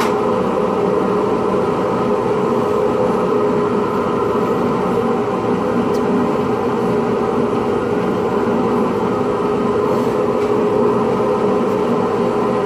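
Drill press driving a Drillnado pen-turning attachment, its motor running steadily with a constant hum as the pen blank spins.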